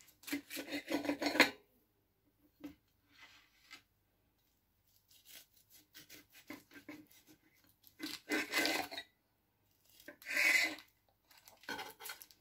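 Serrated bread knife sawing back and forth through a baked apple cake, the blade now and then scraping the plate. The strokes come in groups: a run of quick ones at the start, fainter ones in the middle, and louder ones about eight and ten seconds in.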